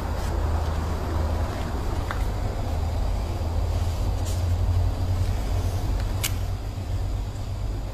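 Kenworth truck's 16-litre diesel engine running steadily, a low rumble with no revving. Three short faint clicks come through at about two, four and six seconds in.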